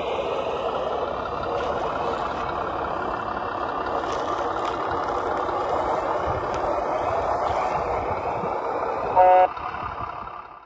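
Steady crunching of a WPL RC 8x6 semi truck and its multi-axle lowboy trailer rolling over gravel. A short, loud horn toot comes near the end, and then the sound fades out.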